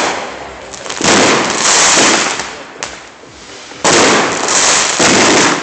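Consumer fireworks going off: four sudden bangs, at the start, about a second in, near four seconds and just after five seconds, each followed by a long hissing, crackling tail that dies away.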